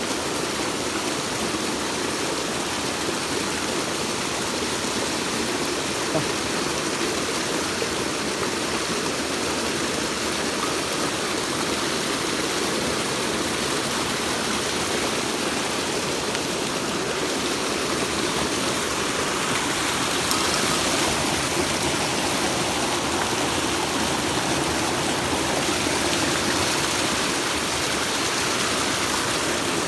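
Mountain stream rushing steadily over rocks, a continuous loud rush of water.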